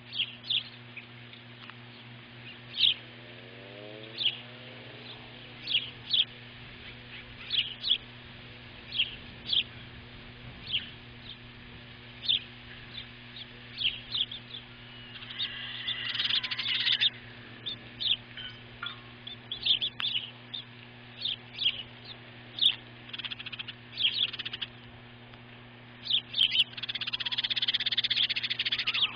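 Osprey calling on the nest: short, high, downward-slurred chirps about every second, with two denser runs of calling, one near the middle and one near the end.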